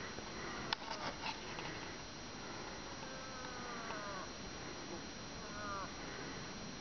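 Moose calling by a hunter imitating a cow moose: a falling, moaning call about a second long, then a shorter falling call near the end. A sharp click about a second in is the loudest sound.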